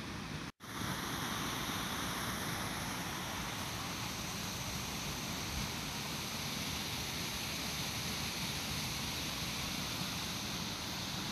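Steady rushing background noise with no distinct source. It cuts out for an instant about half a second in and then carries on slightly brighter.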